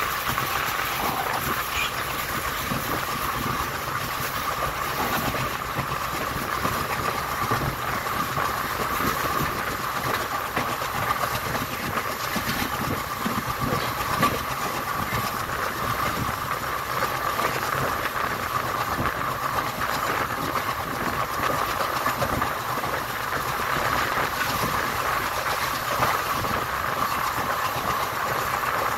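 ICF passenger coaches running at speed on the track, a steady rolling rumble of wheels on rail with the clickety-clack of the rail joints.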